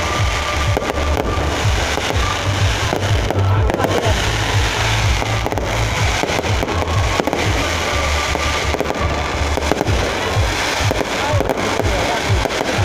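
Aerial fireworks display: a continuous barrage of shell bursts, many a second, with deep booms and crackle.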